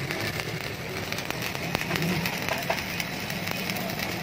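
Stick arc welding on a refrigerator compressor's steel shell: the arc crackles and sizzles steadily, with many small sharp pops, as the shell seam is welded back shut after repair.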